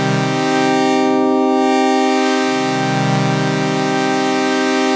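Morphing wavetable pad from the Serum software synthesizer holding a steady pitch. Its waveform sweeps between a sawtooth and a smoother shape, so the tone turns duller about a second in and bright again later.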